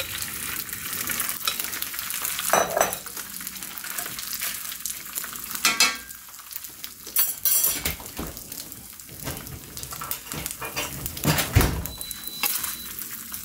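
Cold cooked rice sizzling steadily in hot sesame and grapeseed oil in an enameled pan, with a handful of sharp knocks against the pan.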